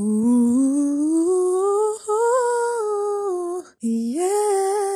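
A woman humming a slow tune in long, smoothly gliding held notes. The pitch rises over the first two seconds, and the tune breaks off briefly near two seconds and again for a moment just before four seconds.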